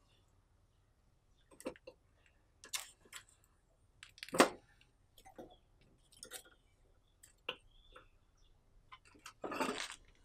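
Metal tongs clicking and clacking against a wire grill grate and a metal baking tray as roasted yam and plantain pieces are picked off the charcoal and put in the tray. Irregular single clicks, the loudest about four seconds in, then a longer rattle near the end as the tray is moved.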